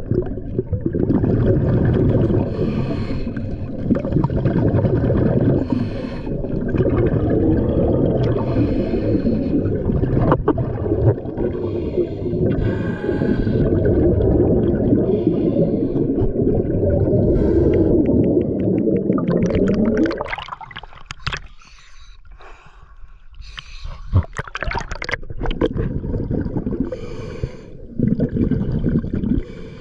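Scuba breathing heard underwater: hissing breaths through the regulator over a low rumble of exhaust bubbles. The rumble falls away for a few seconds about two-thirds of the way through, leaving quieter clicks and crackles, then comes back.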